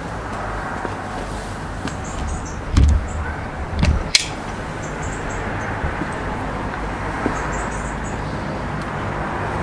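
Garden ambience: a steady low rumble with faint short bird chirps now and then. Two low thumps come about three and four seconds in, with a sharp click just after the second.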